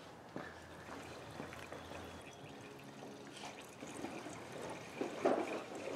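Hot engine oil trickling in a thin stream from a Honda HRN216 lawnmower's oil fill neck into a plastic container, draining the break-in oil after the first run. A brief louder sound stands out near the end.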